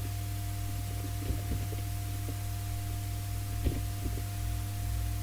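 Steady low electrical hum with background hiss on the recording, with a few soft clicks, the clearest about three and a half seconds in.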